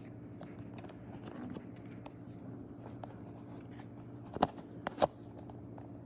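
Quiet room tone with a steady low hum, a few faint clicks, and two sharp knocks about four and a half and five seconds in.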